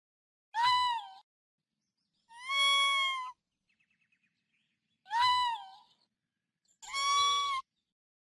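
Young raccoon calling: four high-pitched crying calls about a second apart. Two shorter calls drop in pitch at the end and alternate with two longer, level calls, with a few faint ticks in between.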